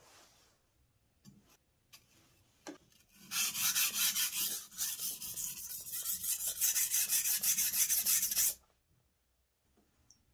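Steel blade of a gyuto chef's knife being stroked rapidly back and forth across a wet whetstone: a rasping scrape for about five seconds, starting about three seconds in and stopping suddenly. It is preceded by a few light knocks.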